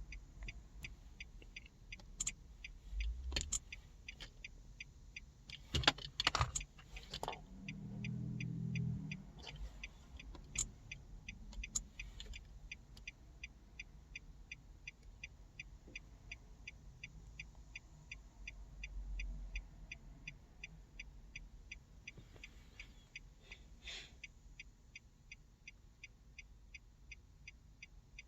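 Hazard-light flasher of a 2021 Nissan Altima ticking in a fast, even rhythm, with a few handling clicks and knocks, mostly a few seconds in and once near the end.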